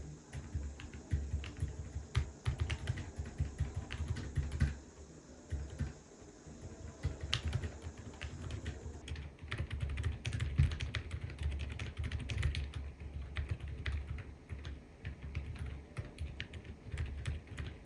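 Continuous typing on a Corne split keyboard with Outemu Lemon V3 silent switches: a fast, irregular run of quiet, dampened keystrokes, with a brief pause about five seconds in.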